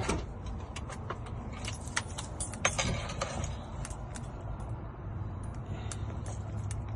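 Scattered light clicks and key jingling as a Chevrolet TrailBlazer key fob and its keys are handled and the fob's buttons pressed, over a low steady hum.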